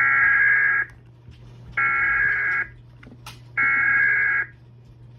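Emergency Alert System SAME header: three bursts of high-pitched digital data tones, each just under a second long and about a second apart.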